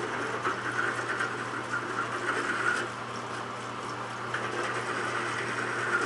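Drill press running with a die-grinder bit in its chuck, a steady motor hum, while small protrusions on a hand-held part are ground down flush. The grinding rasps in two stretches, from about half a second to nearly three seconds in and again from about four and a half to six seconds.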